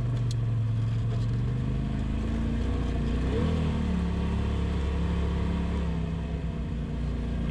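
Side-by-side UTV's engine running as it drives slowly along a dirt trail, its note dropping about two seconds in and briefly rising and falling about three and a half seconds in.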